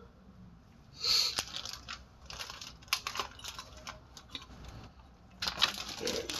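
Handling noises from gloved hands working with small parts: scattered clicks and crinkling rustles. They start about a second in, thin out, and come thicker again near the end.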